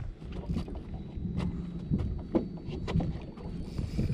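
Wind on the microphone and water lapping against the hull of a drifting boat, with scattered light clicks and knocks.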